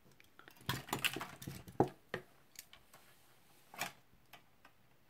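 Silver-plated copper wire being handled and measured out: a flurry of small clicks and rustles about a second in, then a few scattered ticks.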